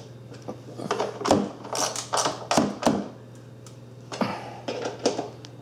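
Hand tool tightening 10 mm bolts into a plastic inner fender liner: irregular clicks and knocks of metal and plastic, over a steady low electrical hum.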